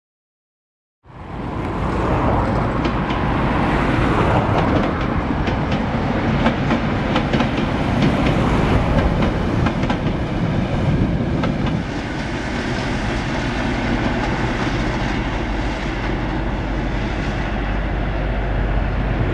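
Ex-DB Class 624 diesel multiple unit running along the line: a steady low engine rumble with the wheels clicking over the rail joints, the clicks thickest in the first half. It cuts in abruptly about a second in.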